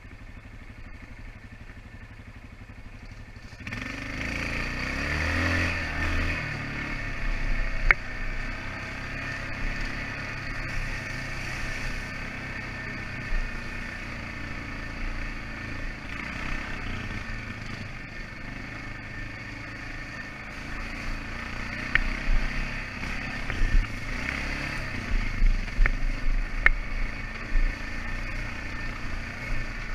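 ATV engine running low for a few seconds, then picking up about four seconds in and running under throttle with rising and falling revs. A few sharp knocks and some clatter from the machine come through.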